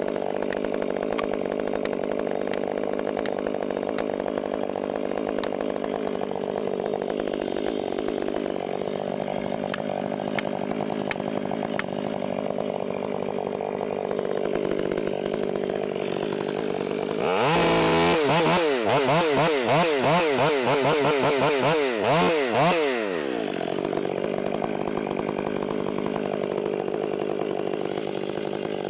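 Two-stroke chainsaw running steadily, then, about two-thirds of the way through, louder for some five seconds, its pitch rising and falling repeatedly as it works, before it drops back to the steady running.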